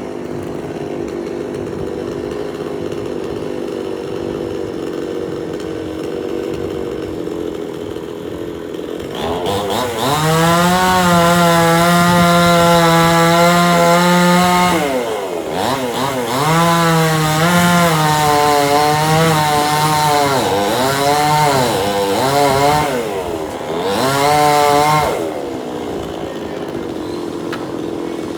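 Two-stroke chainsaw idling, then revved to full throttle about a third of the way in and held there for several seconds. It drops back briefly, then runs at high speed again with a wavering pitch and repeated throttle blips, and settles back to idle near the end.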